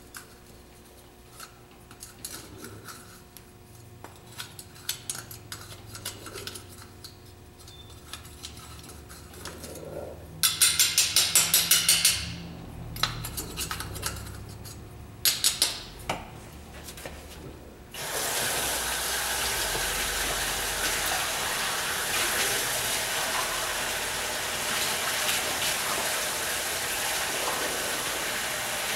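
A metal spoon and small containers clinking and tapping against a metal tray, with a loud quick rattle of sharp knocks about ten seconds in. From about two-thirds through, a steady rush of water running from a tap.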